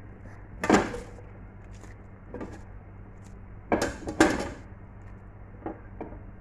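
A cooking utensil clattering and knocking against a pot as cabbage is stirred into mung bean soup: a sharp clatter about a second in, two louder ones around four seconds, and softer knocks between, over a low steady hum.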